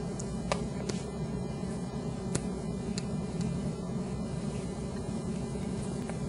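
Steady low background hum with a few faint, sharp clicks of cutlery against plates.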